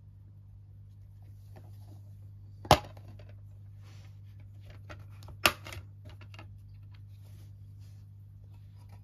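Black plastic DVD keep case being handled. There is a sharp snap about two and a half seconds in as the case is opened, and a second sharp click about halfway through as the disc is popped off the centre hub. Light plastic clicks and rubbing from the hands fall between them.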